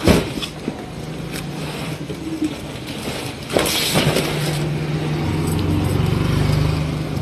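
A motor vehicle's engine running steadily, growing louder from about four seconds in. There is a sharp knock right at the start.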